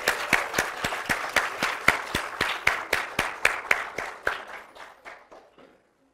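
Applause. One pair of hands claps close by at about four claps a second over lighter clapping from the room, and it dies away about five and a half seconds in.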